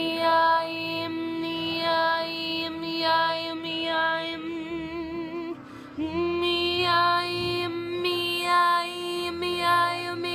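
A woman's voice singing without words: a long held note with a tune moving above it, breaking off for a moment about six seconds in and then starting again.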